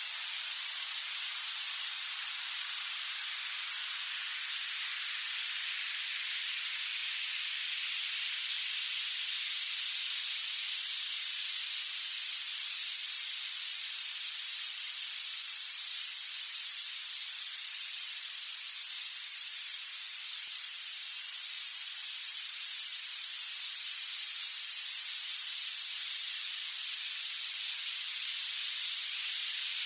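Violet noise: a steady, even hiss weighted to the highest pitches, with no low end at all.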